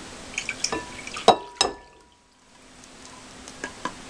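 An egg is cracked on the rim of a mixing bowl: two sharp knocks about a third of a second apart, each ringing briefly, among lighter clicks of handling. Milk trickles from a carton into a plastic measuring cup.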